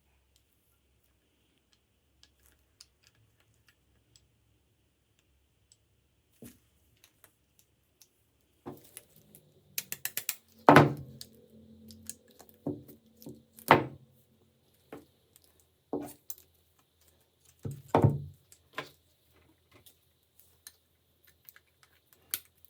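Sharp knocks and clicks of hard parts being handled and set down, scattered irregularly and starting a few seconds after near silence. Some strikes carry a short ring.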